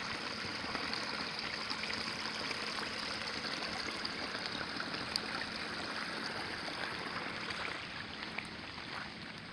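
Small trickling creek: steady running and splashing water, easing slightly near the end.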